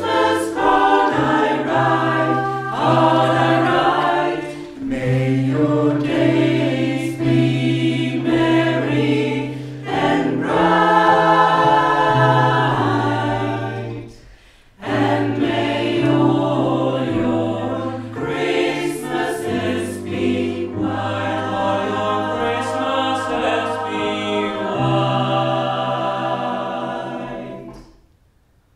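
Small mixed choir of women's and men's voices singing an Advent song in chords. There is a brief breath pause about halfway, and the song ends with a final chord that dies away near the end.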